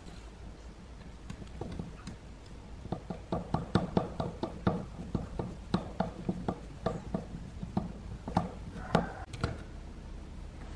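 Hands working on small parts and tools: an irregular run of sharp clicks and knocks, busiest through the middle and tailing off near the end.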